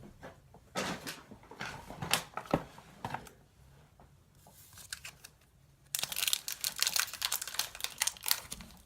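A few scattered handling knocks and rustles, then from about six seconds in a dense, rapid crinkling of a Pokémon booster pack's wrapper being worked at to open it.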